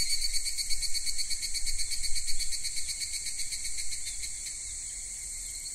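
Insect chirring: a high, steady trill with a fast pulse that evens out after about four seconds.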